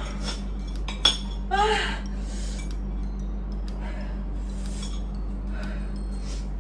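Cutlery and chopsticks clinking against plates and glassware while two people eat noodles, with one sharp clink about a second in, followed by a short vocal sound. A steady low hum runs underneath.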